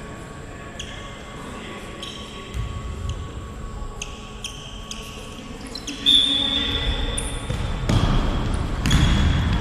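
Indoor football play in a sports hall: short high squeaks of shoes on the floor, a longer, louder high tone about six seconds in, and ball thuds near the end, with the hall echoing.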